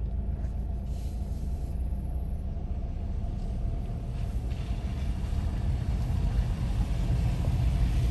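Low, steady rumble of a Ford Bronco Sport driving slowly across a concrete low-water crossing, heard from inside the cabin.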